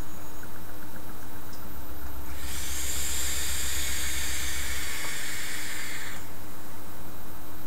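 Electronic cigarette's coil firing and sizzling as a drag is drawn through the tank. It is a steady hiss that starts about two and a half seconds in, lasts nearly four seconds and cuts off sharply.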